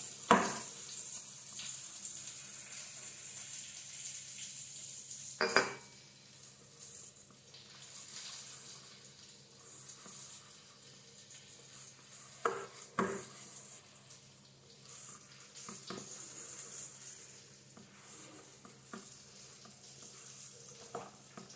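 Hand mixing and kneading maida flour with water in a stainless steel bowl: a soft scraping rustle of flour and damp dough against the steel, louder for the first few seconds. There are a few sharp knocks of the hand or dough against the bowl.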